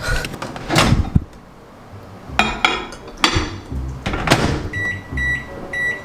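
Knocks and clatter of a glass food container being handled in a fridge and doors shutting, then from near the end a run of short, high electronic beeps about two a second: a microwave oven beeping.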